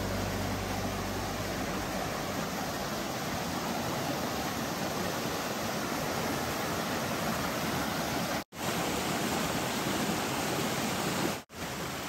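Shallow stream water rushing and cascading over granite boulders: a steady, even hiss. It cuts out abruptly twice for a split second near the end.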